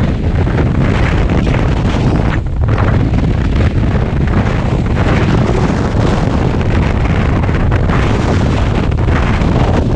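Loud, steady wind buffeting the microphone, with water rushing along the hulls of a Tornado racing catamaran sailing fast.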